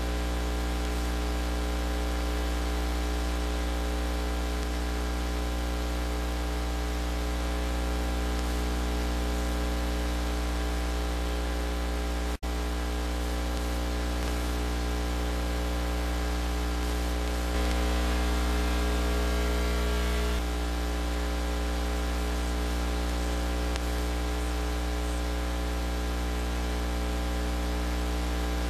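Steady electrical hum with static hiss: a stack of even tones under a constant hiss. It cuts out for an instant about twelve seconds in and grows louder for about three seconds a little past the middle.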